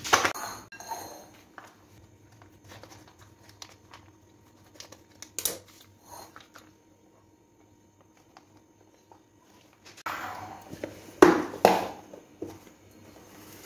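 Plastic yogurt pouch crinkling as it is handled, opened and emptied into a glass bowl, with the loudest rustles about ten to twelve seconds in. A sharp knock right at the start.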